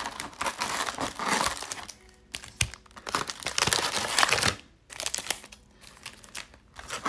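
Foil baseball card pack wrappers crinkling as a stack of packs is pulled from the box and set down, in several bursts of rustling. Music plays quietly underneath.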